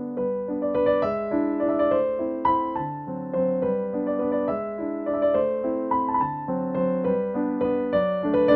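Background music: a slow keyboard melody of held piano-like notes.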